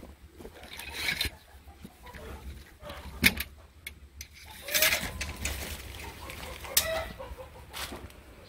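Chickens clucking in several short bursts, with a steady low rumble underneath.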